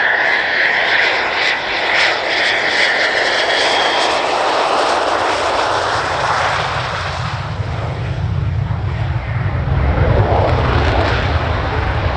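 Jet aircraft: a high engine whine at first, giving way to a deep rumble that builds from about six seconds in.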